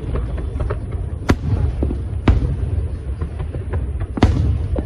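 Aerial fireworks bursting, recorded on an old mobile phone: three loud sharp bangs about a second or two apart with smaller crackling reports between them, over a steady low rumble.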